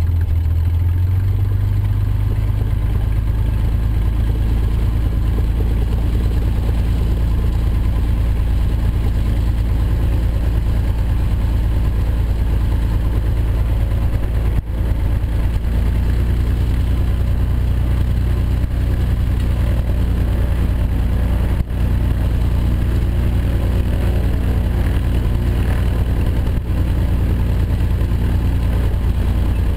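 Cessna L-19/O-1 Bird Dog's Continental O-470 six-cylinder engine and propeller running at low taxi power, heard from inside the cockpit. The engine note drops about a second in as power comes back, then holds steady, with two brief knocks midway.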